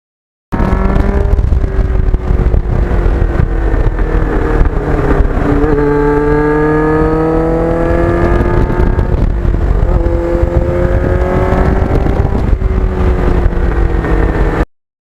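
Kawasaki GPX750R motorcycle's inline-four engine through a Norton muffler, ridden under way. The engine pitch climbs and drops back with gear changes, over a low rumble of wind.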